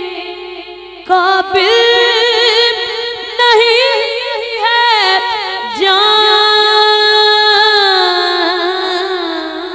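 A young reciter singing a naat unaccompanied into a microphone, in several phrases of long held high notes that bend and waver with melismatic ornaments.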